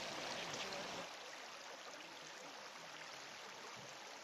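Yukon River water flowing, a faint, steady rush with no distinct splashes; the low rumble thins out about a second in.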